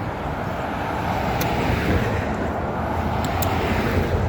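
Road traffic noise: a steady wash of tyre and engine sound from passing cars, swelling slightly in the first couple of seconds.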